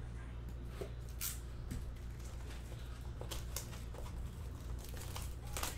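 Hands tearing open a cardboard trading-card blaster box and handling its packs: irregular crinkling and rustling with sharp crackles, the loudest near the end, over a steady low hum.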